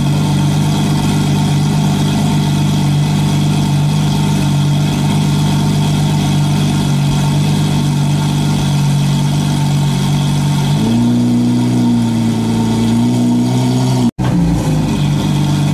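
Steady engine sound for a toy RC Suzuki Jimny as it drives, a simulated car engine rather than the model's electric motor. It steps up in pitch about eleven seconds in and breaks off for an instant near the end.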